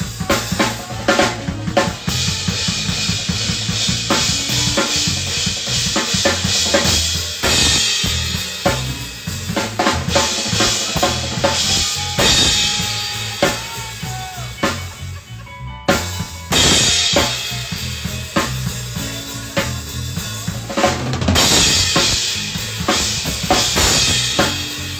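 Drum kit played in a steady groove, with bass drum and snare hits, alongside other pitched instruments.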